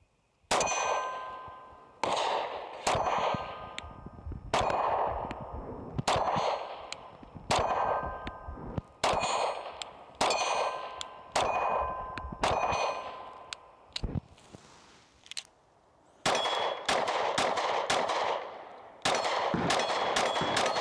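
A string of pistol shots, each followed by the metallic ring of a struck steel target fading away. The shots come about a second apart through the first half, and in quicker strings from about two-thirds of the way in.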